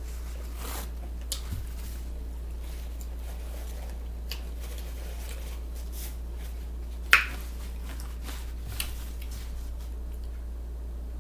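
Quiet eating sounds: scattered small clicks, soft squishes and rustles of a sausage sandwich being bitten, chewed and handled, over a steady low hum. One sharper click comes about seven seconds in.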